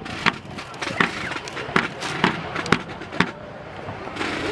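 Sharp wooden-and-metal clacks of drill rifles being slapped and handled in a rifle drill, about two a second and slightly irregular, over crowd murmur.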